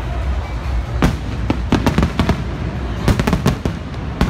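Aerial firework shells bursting overhead: irregular clusters of sharp bangs, a burst of them about a second in and another near three seconds, over a steady low rumble.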